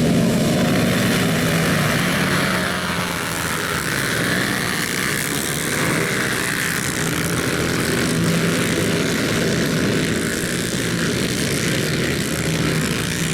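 Racing ATV engines running in a loud, steady drone, its pitch holding fairly even with only small rises and falls.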